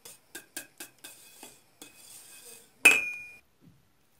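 A wire whisk clicks against the sides of a stainless steel pot while stirring a thick milk pudding: a run of sharp clicks in the first second and a half. About three seconds in comes one loud metallic clank that rings briefly.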